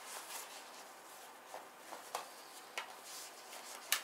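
Handling of folded Beats over-ear headphones and their soft fabric case: quiet rustling with a few light clicks. The sharpest click comes near the end, as the headband is opened out.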